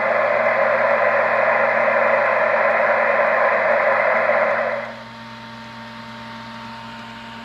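Static hiss from a Kenwood TS-690S HF transceiver's speaker on 14.300 MHz, an open single-sideband channel with no one transmitting. The steady hiss drops to a much quieter level about five seconds in.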